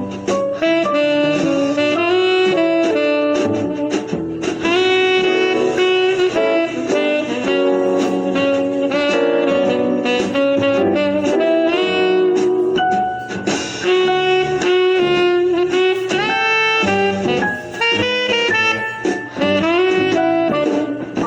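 Background jazz music led by a saxophone playing a melody over a backing band.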